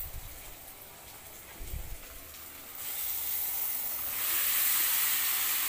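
Boiled macaroni and Maggi noodles tipped into a hot kadhai of frying masala: after a low handling bump, sizzling starts about halfway through and grows louder.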